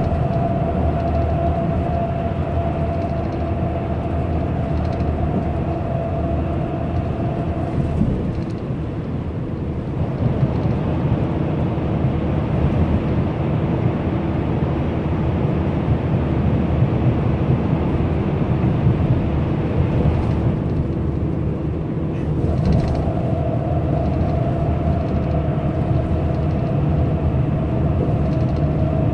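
Engine and road noise inside a moving coach bus: a steady low rumble with a thin whine on top. The whine drops out and the noise changes for a stretch in the middle while the bus runs through a tunnel, then returns near the end.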